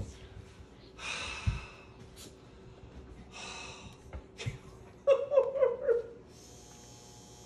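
A man crying with emotion: long shaky breaths in and out, then about five seconds in a quick run of short, choked, high sobs.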